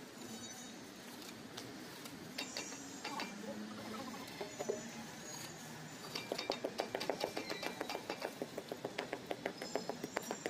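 Steel trowel working a bed of wet cement mortar. About six seconds in it breaks into a fast, even run of light taps, roughly seven a second, as the mortar surface is patted down. Short high bird chirps come earlier.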